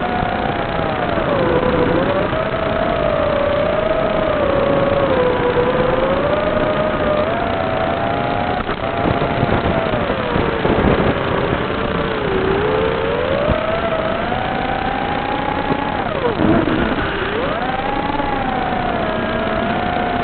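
Small FPV quadcopter's electric motors and propellers whining over a steady rush of air, the pitch wavering up and down with the throttle. It drops away sharply twice, about ten and about sixteen seconds in, then climbs back as the throttle is punched again.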